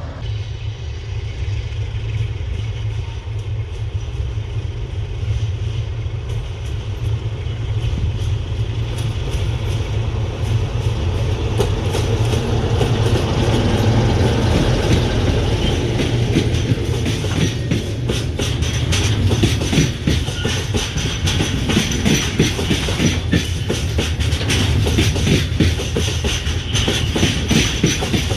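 Diesel locomotive and train running on the track, a steady low engine drone underneath. The clatter of wheels over the rails grows louder and denser from about ten seconds in as the train comes closer.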